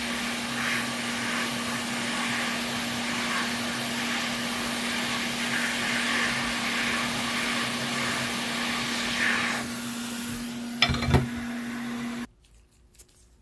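A motor-driven dust-cleaning tool runs steadily with a constant hum while cleaning a PS5's internals. A couple of sharp knocks come near the end, just before the motor switches off suddenly.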